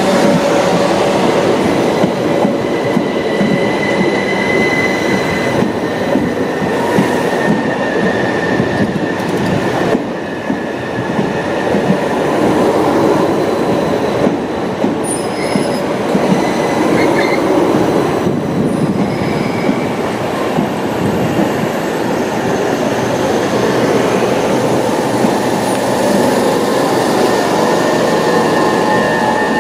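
Southern Class 377 Electrostar electric train running along the platform: a steady rumble of wheels on rail with scattered clicks over the joints. A thin wheel squeal rises briefly about four seconds in and again near the end.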